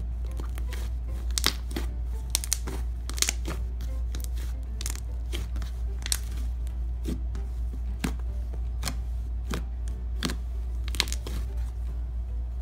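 Fluffy shaving-cream slime being stretched, squished and poked, giving off irregular crackles and small pops, over a steady low hum.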